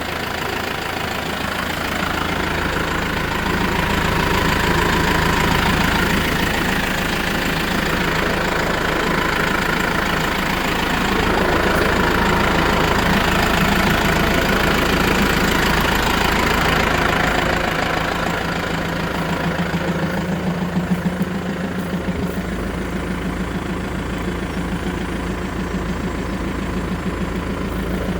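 Tractor engine running steadily. About 20 seconds in, the higher hiss eases and a lower hum grows stronger.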